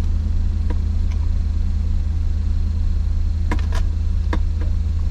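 Steady low engine rumble. Over it come a few light plastic clicks as the backup-camera monitor is handled on its dash mount: one near the start and a cluster a few seconds in.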